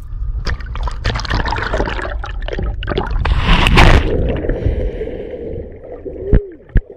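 Sea water splashing and sloshing against a boat's hull, with wind on the microphone; a louder rushing burst comes about halfway through. Near the end a short rising-and-falling voiced whoop.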